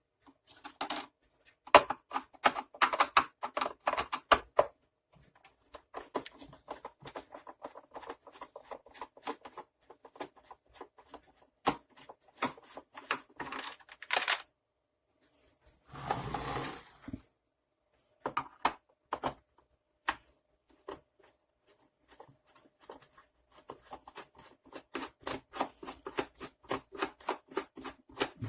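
Clicks and rattles of a screwdriver and plastic casing parts as a Hoover T2424 vacuum cleaner is taken apart. There is a longer rough rasping noise for about a second past the middle, and quick even runs of clicks near the end.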